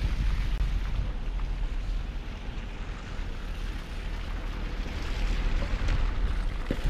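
Wind buffeting the microphone of a camera riding on a moving car's roof, a steady low rumble that eases a little midway, with a short knock near the end.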